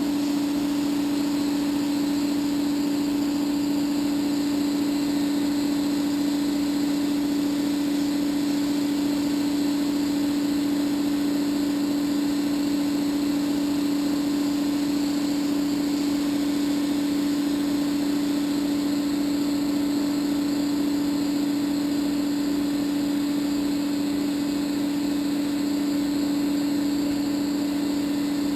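HVLP paint-spray turbine running with a steady hum and a strong single drone, under the hiss of the spray gun laying on a wet coat of finish.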